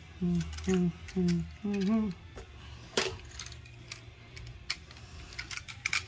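A man hums four short notes, each sliding down in pitch, in the first two seconds. About three seconds in comes a sharp click, followed by scattered light clicks and taps as a wall switch and its wires are handled.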